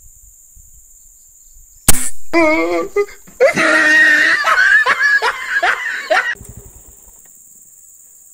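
A PCP air rifle fires once about two seconds in, a single sharp crack, and the shot misses. Several seconds of loud laughter follow.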